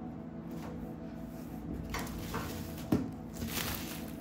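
Clear plastic wrapping crinkling and rustling as it is handled, starting about two seconds in, with one sharp knock just before three seconds. A steady low hum runs underneath.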